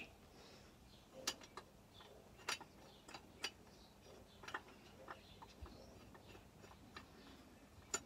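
Faint, irregular light metallic clicks and taps, about a dozen of them, as a threaded crankshaft-fitting tool is wound back and seated on a chainsaw crankcase. The sharpest click comes at the very end.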